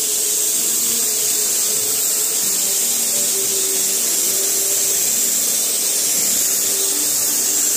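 Pneumatic gravity-feed spray gun spraying in a steady, even hiss of compressed air.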